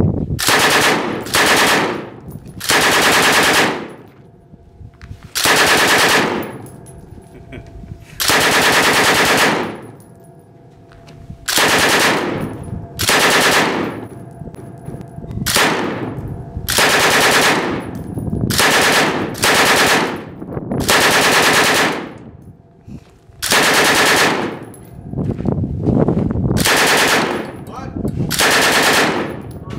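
PKM 7.62×54R belt-fed machine gun firing on full auto in repeated short bursts, about fifteen of them, each half a second to a second and a half long with brief pauses between.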